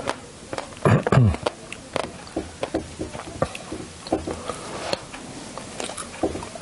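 Someone eating fresh strawberries: chewing with scattered wet mouth clicks and smacks, and a brief hum of voice about a second in.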